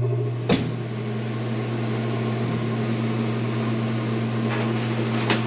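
A steady low electrical hum of a running appliance motor, with a few sharp clicks and knocks, the loudest about half a second in, as hands work at the stove's metal gas fitting.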